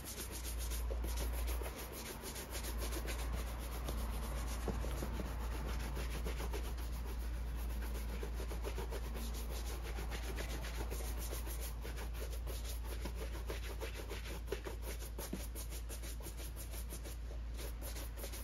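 Stiff bristle brush scrubbing a leather boot upper in rapid back-and-forth strokes, a continuous scratchy rubbing, over a steady low hum.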